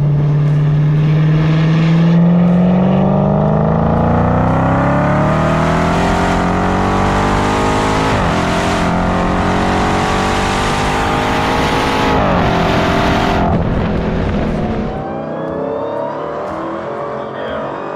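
The stock Dodge Demon 170's supercharged 6.2-litre HEMI V8 at full throttle, its note climbing steadily through the gears with two sharp drops at upshifts, about eight and twelve seconds in. Near the end it eases to a lower, quieter, steadier drone.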